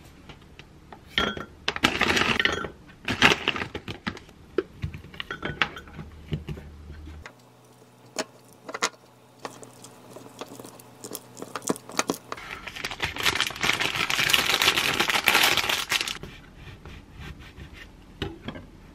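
A wooden spoon stirring and scraping Greek yogurt and blueberries in a glass cup, with light clinks against the glass. Later comes a longer stretch of dense rustling noise, lasting about three seconds.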